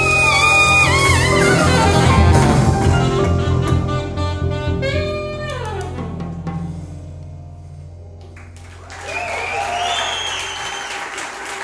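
Saxophone, piano, bass and drums playing the closing bars of a jazz samba: the playing is dense and loud, a falling slide comes about five seconds in, and a last low note rings and fades. Applause breaks out near the end.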